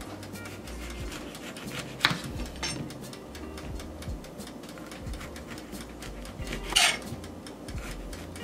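A kitchen knife cutting through orange peel on a plastic cutting board, with many small clicks of the blade and board. There is a sharp cut about two seconds in and a louder scraping slice near the end.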